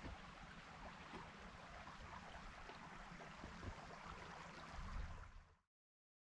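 Faint rushing of a creek flowing over rocks, with a low flickering rumble underneath, cutting off abruptly to silence about five and a half seconds in.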